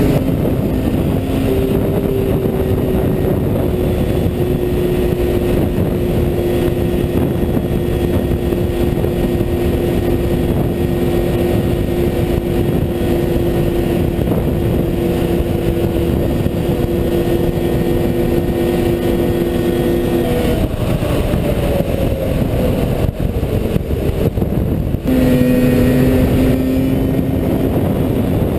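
Snowmobile engine running at high revs while the sled skims across open water, under a heavy rushing noise. The engine pitch holds steady for most of the run, eases off about twenty seconds in, and settles at a lower pitch near the end.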